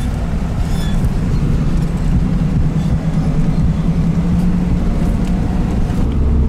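Lada Niva's engine droning steadily, heard from inside the cabin as it drives over a snow-covered track, with rumble from the tyres and body. The engine note eases off slightly about five seconds in.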